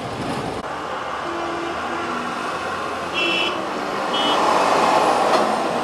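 Road traffic noise with two short, high horn beeps about three and four seconds in; a passing vehicle swells louder in the second half.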